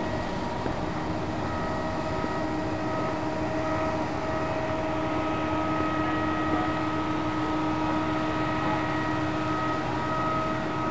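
Steady hum of heavy machinery running, with several faint steady whining tones over it. The lowest tone grows a little stronger about midway.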